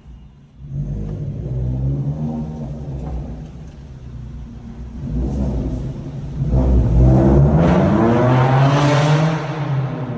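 Maruti Suzuki Brezza's engine being revved: the pitch climbs about a second in, eases off, then climbs higher and louder from about six seconds before dropping back near the end.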